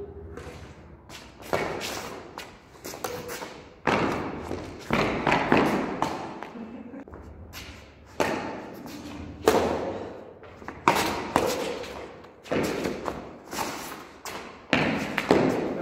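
Badminton rackets hitting a plastic shuttlecock back and forth in a rally, a sharp smack about every second or so, each ringing briefly off the surrounding walls.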